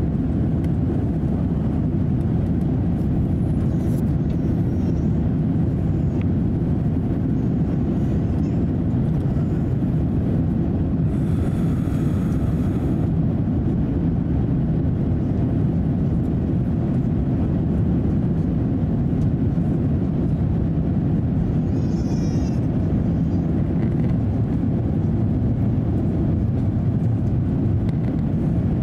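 Steady cabin noise inside an Airbus A350-900 airliner climbing after takeoff: an even, low rumble of engine and airflow noise at a constant level.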